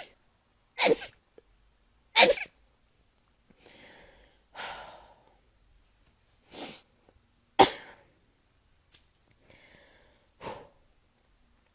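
A person sneezing over and over in a fit: about five sharp sneezes, one after another, with quieter breaths drawn in between them.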